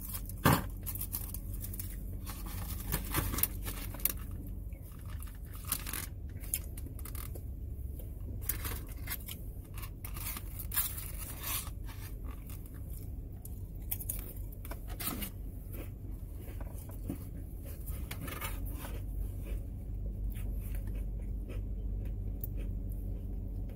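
Plastic snack wrapper crinkling and tearing as it is handled and opened, with scattered sharp clicks and scrapes over a steady low hum.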